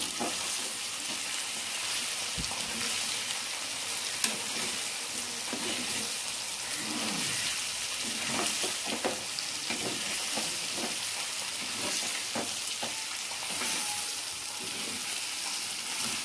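Pepper chicken pieces and potato frying in oil in a pan, with a steady sizzle. A spoon scrapes and clicks against the pan as the pieces are stirred, most often in the middle of the stretch.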